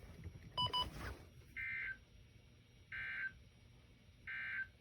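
EAS End-of-Message signal on a NOAA Weather Radio broadcast: three short identical bursts of warbling digital data tone, about 1.3 seconds apart, closing the weekly test. Just before the first burst, a brief sharp beep.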